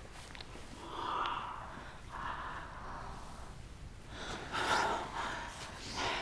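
Heavy breathing and gasps from two women kissing and embracing, a few breathy exhales at first, growing louder about four seconds in.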